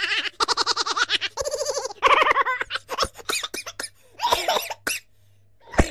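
Minions laughing: high-pitched cartoon voices in a run of rapid giggles and cackles, breaking into shorter bursts near the end.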